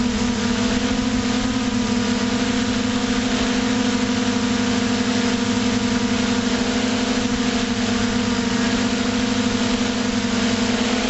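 Multirotor drone's electric motors and propellers heard from its onboard camera: a steady droning hum with a higher whine above it and a constant hiss of air rushing past.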